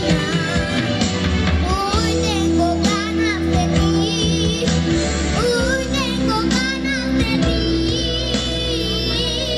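A young boy singing a romantic ballad into a microphone, amplified through stage speakers over instrumental accompaniment with a steady bass; his sung notes waver with vibrato.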